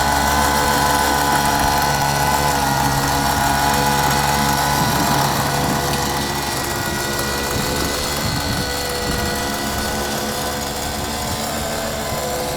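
Leaf blower engine running steadily as it powers a kayak, settling a little lower in pitch over the first few seconds and slowly getting fainter.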